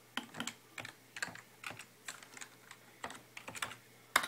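Computer keyboard keys being pressed: irregular short runs of clicks, with a single sharper click near the end.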